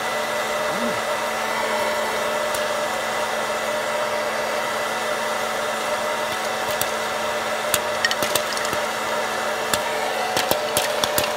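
West Bend Air Crazy hot-air popcorn popper running: its fan and heating element blow steadily with a hum, while corn kernels pop in the hot air. At first the pops are few and scattered, then they come faster near the end as the batch gets going.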